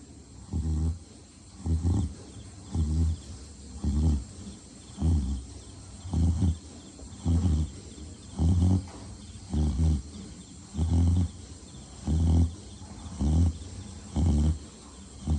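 A pig snoring: a low-pitched snore repeating regularly about once a second, each snore short, with the steady rhythm of sleep breathing.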